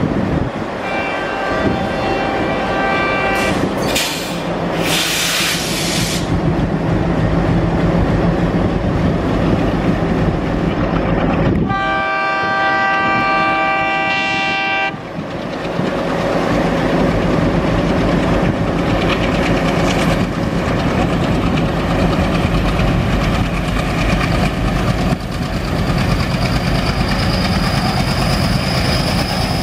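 ALCO-type diesel locomotives, one idling close by and one approaching, running with a steady low drone. A locomotive horn sounds faintly in the first few seconds, then a strong horn blast about twelve seconds in lasts about three seconds. Near the end a high squeal rises as the arriving train's wheels and brakes come close.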